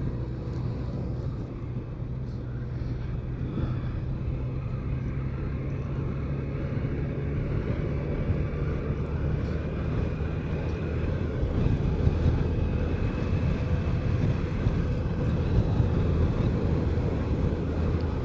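BMW K1200RS inline-four engine running steadily under way with road and wind noise, growing gradually louder.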